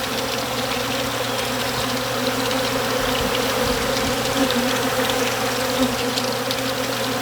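Steady buzzing of a mass of honey bees in a feeding frenzy, swarming extracted honey frames to clean out the leftover honey.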